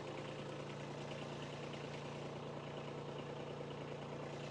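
Kubota B2301 tractor's three-cylinder diesel engine idling steadily.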